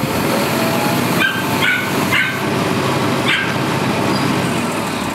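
Lorry-mounted crane's engine running steadily during the lift. Four short high-pitched sounds rise over it between about one and three and a half seconds in.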